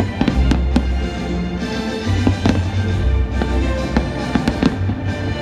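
Fireworks going off in a quick series of sharp bangs and crackles, over loud music with held bass notes.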